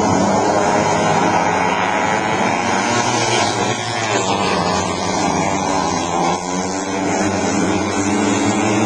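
Several junior speedway motorcycles racing together, their engines running hard with the pitch rising and falling as they go through the corners.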